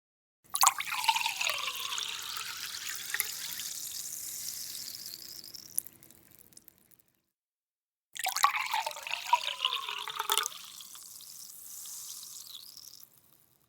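Water splashing and running, starting suddenly, easing off and fading out over about six seconds, with a falling gurgling tone at the start; the same sound comes again after a short silence.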